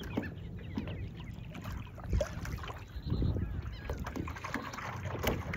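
Birds calling in short wavering cries over low wind noise on the microphone, with scattered small knocks.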